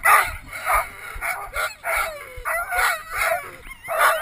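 A team of harnessed sled dogs yelping and barking excitedly, short high cries coming several times a second, some rising and falling like howls. This is the clamour of a team eager to go at the start of a run.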